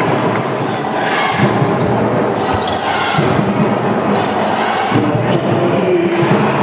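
A basketball being dribbled on a court during live play, its repeated bounces over the steady din of an indoor arena, with short high squeaks scattered through.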